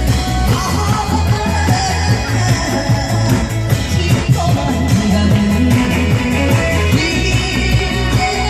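Loud music with a steady, pulsing bass beat and a singing voice over it.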